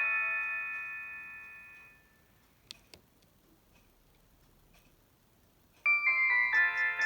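Samsung SGH-D600 mobile phone playing polyphonic MMS template melodies. One melody fades out over the first two seconds and two faint clicks follow. A new melody of short, quick notes starts abruptly about six seconds in.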